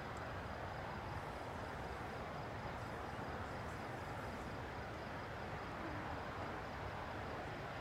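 Steady outdoor background noise with no distinct events, and a faint, high chirp pulsing evenly.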